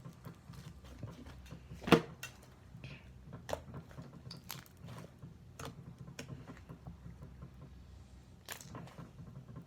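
Slime being squeezed and poked by hand, making scattered sticky clicks and pops, with one louder pop about two seconds in, over a low steady hum.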